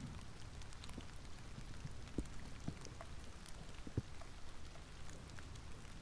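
Light rain pattering, small drops ticking irregularly, with a couple of louder drops about two and four seconds in, over a low steady rumble.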